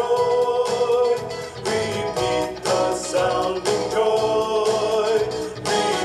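A recorded Christmas song playing, with singing over a band and a steady beat.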